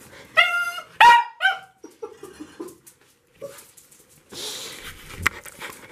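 A dog giving three short, high-pitched barks in quick succession in the first second and a half, followed by quieter clicks and a burst of rustling noise near the end.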